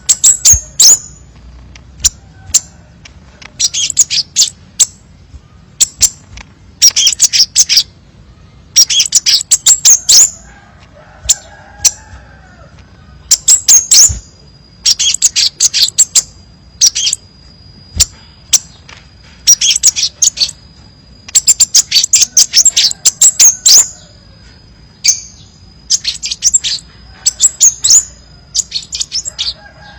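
Crimson sunbird singing: bursts of rapid, sharp, high-pitched chirps and trills, each half a second to two seconds long, repeated with short gaps and varying from burst to burst.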